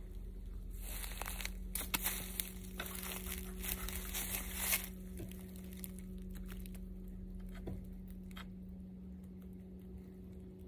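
Crinkly rustling and crunching with sharp crackles for about four seconds, like dry leaves and brush being trodden and pushed through, then a few faint clicks and rustles. A steady low hum runs underneath.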